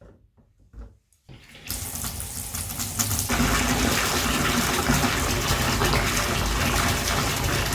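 Water gushing from a tap into a bathtub, filling it; a few faint clicks come first, then the flow starts about a second and a half in and grows stronger about three seconds in.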